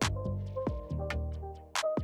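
Background music with a steady beat, deep bass notes and a short repeating melody.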